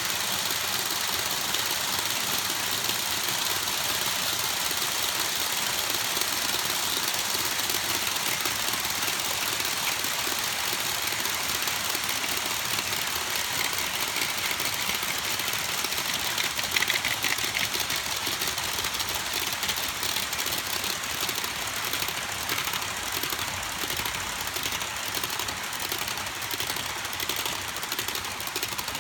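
Long HO-scale model freight train of covered hoppers rolling fast past on the track: a steady rattle of many small wheels on the rails, with quick regular clicking, like wheels over rail joints, in the later part.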